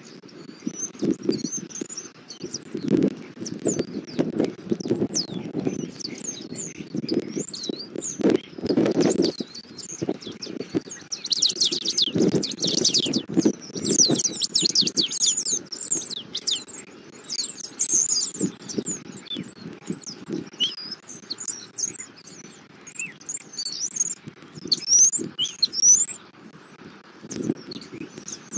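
Small birds twittering busily, many short high chirps overlapping, thickest about eleven to fifteen seconds in, over low rustling.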